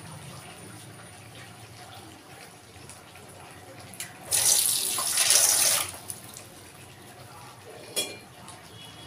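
A water tap runs briefly, a loud rush of water lasting about a second and a half midway through. A short sharp click follows near the end, over a faint steady hiss.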